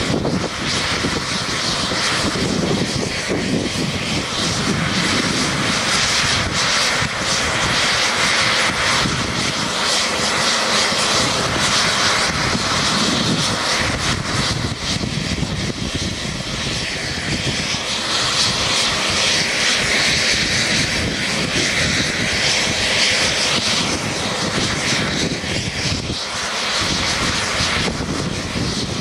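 Coast Guard HH-60J Jayhawk helicopter running on the ground, its twin turboshaft engines and rotors making a steady, loud noise.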